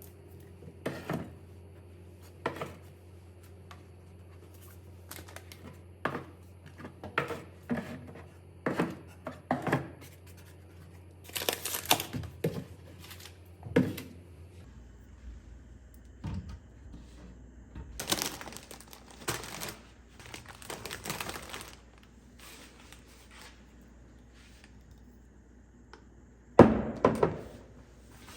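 Household handling sounds: irregular knocks and thuds of things being set down and moved, with bursts of packaging rustling or tearing about halfway through. The loudest is a quick cluster of knocks near the end.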